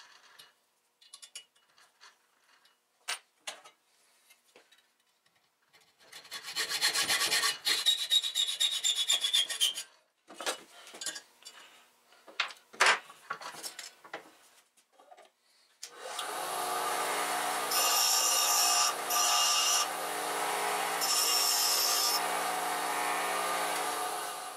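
A hacksaw cuts through the steel cap screw held in a bench vise: a few light scrapes and clicks, then a dense run of fast sawing strokes, then more scattered strokes. About two-thirds through, a bench grinder starts running steadily. In a few stretches a harsher hiss comes in as the cut end of the threaded stud is ground against the wheel.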